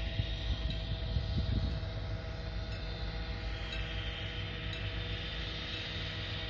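Steady low hum of a distant Korail 7500-class diesel locomotive engine running as the train approaches, with wind buffeting the microphone in the first couple of seconds.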